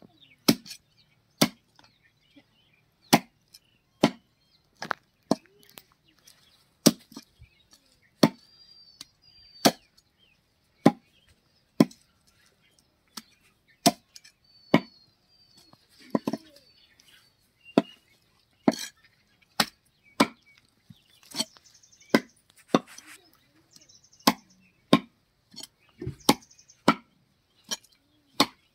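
Heavy cleaver chopping a whole country chicken into pieces on a wooden tree-stump block: sharp single chops into the wood, roughly one a second, unevenly spaced.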